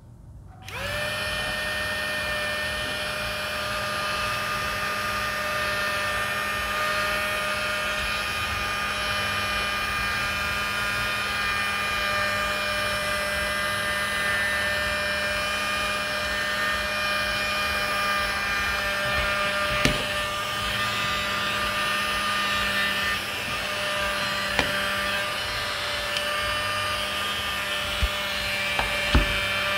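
Handheld bladeless mini fan switched on about a second in and running at its strongest speed: a steady motor whine of several tones over a rush of air. A few light knocks from handling near the end.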